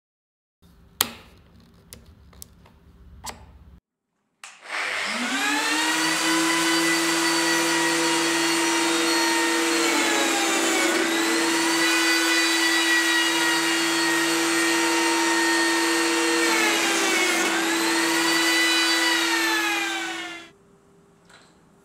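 Lamello Zeta P2 joiner's motor: a few light handling clicks, then it spins up and runs at a steady high whine. Its pitch sags briefly twice as the cutter bites into the panel to mill the P-System grooves, and it winds down and stops near the end.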